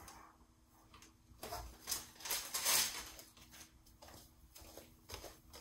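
Rustling and rubbing as a hand fluffs rainbow shredded stuffing inside a large inflated latex balloon and is drawn back out through its neck, loudest about two to three seconds in.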